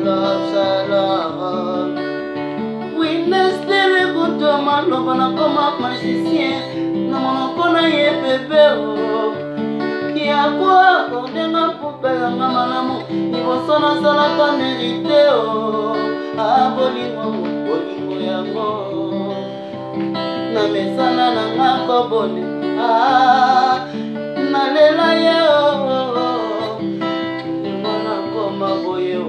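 Acoustic guitar played with the fingers in a repeating pattern of bass notes and higher chords, while a man sings along.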